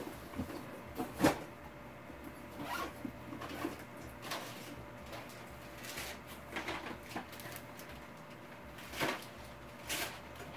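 Irregular knocks, rustles and clatter of things being handled and moved about, as in rummaging for batteries; a sharp knock about a second in is the loudest.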